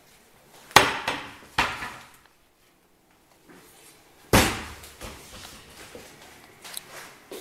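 Kitchen cabinet doors being shut by hand: two sharp knocks under a second apart, then a louder knock with a short ringing tail about four seconds in.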